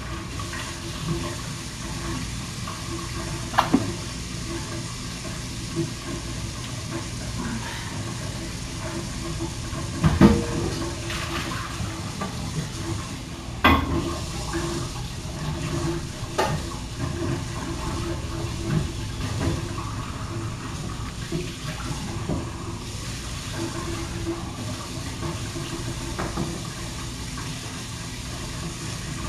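Water running steadily, as from a tap while cleaning up, with a few sharp knocks about 4, 10, 14 and 16 seconds in.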